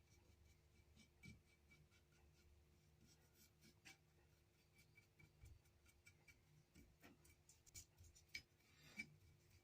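Near silence: room tone with faint, scattered light clicks and scratchy ticks.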